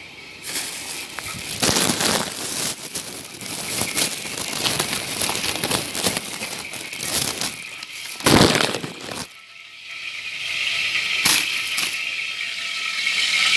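Kitchen handling noise: irregular clattering and rustling as dishes and containers are moved, with one loud knock about eight seconds in. A steady hiss builds near the end.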